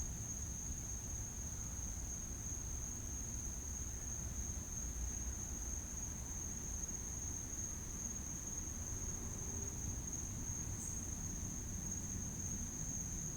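Crickets trilling in one steady, unbroken high tone, over a low, even background noise.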